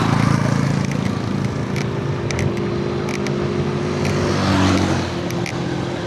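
Road traffic: motor vehicle engines running steadily, with a vehicle swelling past about four seconds in.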